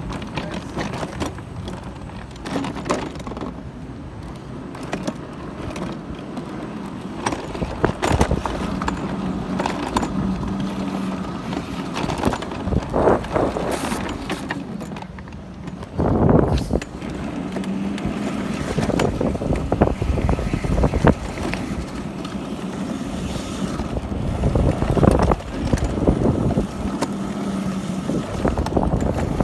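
Ninebot Go-kart Pro electric go-kart driving over pavement: its low motor hum comes and goes over the rolling noise of the wheels, with small knocks and rattles from bumps. There is a louder rattling thump about 16 seconds in and another near 25 seconds.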